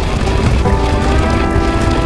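Loud music or sound-effect mix with a heavy low rumble; a held, pitched tone with several overtones comes in about half a second in.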